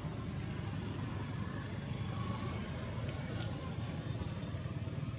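A steady low outdoor rumble, even in level throughout, with a couple of faint clicks a little past halfway.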